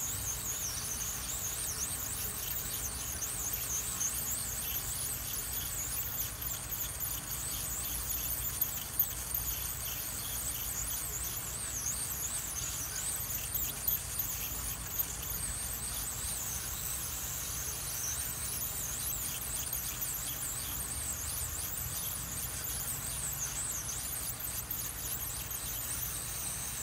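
Hot air rework station blowing at full airflow and 480 degrees over an IC's pins: a steady hiss with a high wavering whistle, over a low hum. A few small clicks about a third and halfway through.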